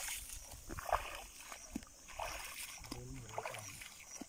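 Footsteps swishing and splashing through wet marsh grass and shallow water, in repeated short strokes.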